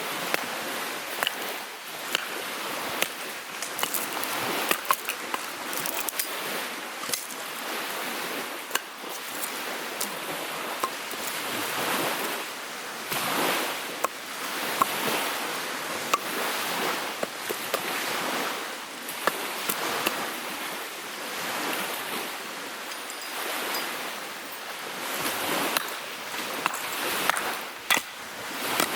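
Small waves lapping on a lakeshore, swelling and ebbing about every two seconds, with scattered sharp clicks.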